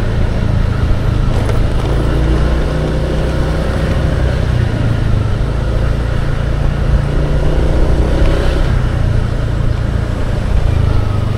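A vehicle travelling along a road: a steady, loud low rumble with a faint held engine tone through the middle.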